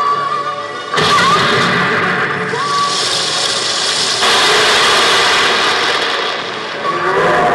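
A loud rushing sound effect from the skit's backing track, played over the stage loudspeakers. It starts suddenly about a second in and turns hissier about four seconds in. A held musical note comes before it.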